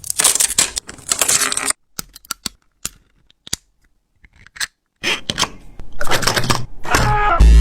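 Small hard objects clicking, scraping and clattering as they are handled, in two stretches with a near-silent gap and a few isolated clicks between them. A rising swept tone starts near the end.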